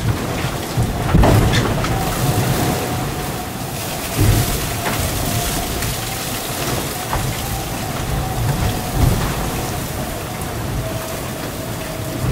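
Rushing water, spray and wind noise aboard an IMOCA 60 racing yacht under way at speed, with a few low heavy thuds about one, four and nine seconds in.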